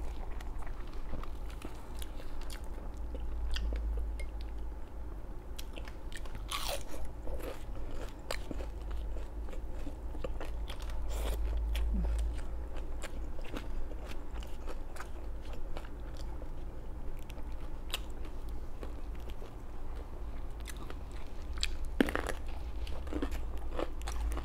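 Close-up crunching and chewing of crispy fried food, with many short crackly bites at an irregular pace, over a low constant hum.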